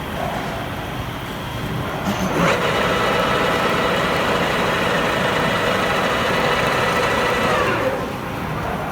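16K20 screw-cutting lathe running. About two and a half seconds in, a steady gear whine starts abruptly over the motor hum, holds for about five seconds, then sinks in pitch and dies away as the spindle stops.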